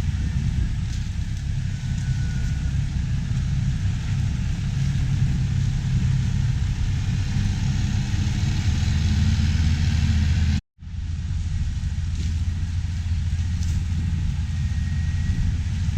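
Large diesel farm machinery running steadily during corn harvest, a deep constant engine rumble with a wash of higher mechanical noise. The sound cuts out completely for a split second about two-thirds of the way through, then resumes.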